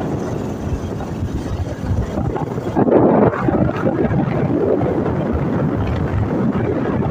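Wind buffeting the microphone: a loud, rough rumble that rises and falls in gusts, with a stronger gust about three seconds in.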